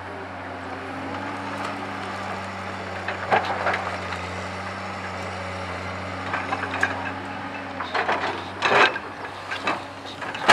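Komatsu hydraulic excavator's diesel engine running with a steady low hum, with scattered knocks and clatter of rock against the steel bucket as it digs and lifts stone. A louder clatter of rock comes a little before the end.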